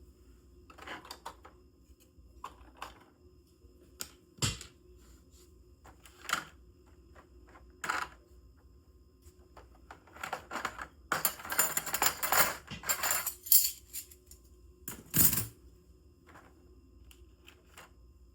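Kit parts and packaging handled on a work table: scattered clicks and taps of small metal and plastic pieces, two louder knocks, and a few seconds of dense rattling and rustling near the middle.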